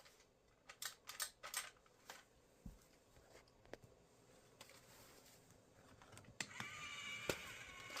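Faint scattered clicks, then about six seconds in the small battery motor of a Nerf Zombie Spin Strike target starts with a faint steady whine, with a couple of sharp clicks over it.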